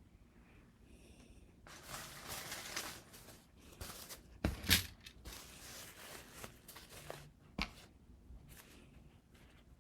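Materials handled by hand: a rustling, tearing sound about two seconds in, then a few sharp knocks and clicks, the loudest near the middle.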